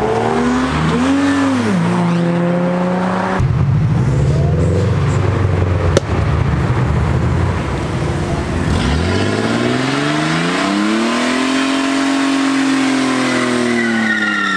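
Exhausts of modified cars accelerating away: an engine blips and revs in the first couple of seconds, then a rough low engine note with a sharp crack about six seconds in. From about nine seconds a Ford AU Falcon's engine revs up, holds high for a few seconds and drops, with tyre squeal near the end as its rear tyres spin in a burnout.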